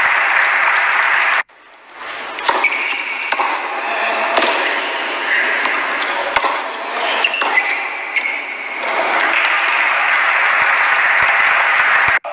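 Tennis ball struck back and forth in a rally on an indoor hard court: a string of sharp hits a second or so apart over steady background noise. The sound cuts out for a moment near the start.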